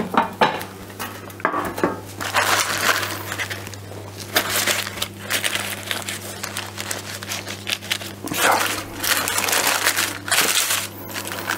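Baking paper rustling and crinkling in repeated spells as it is handled around a rolled rösti roulade on a baking tray, over a steady low hum.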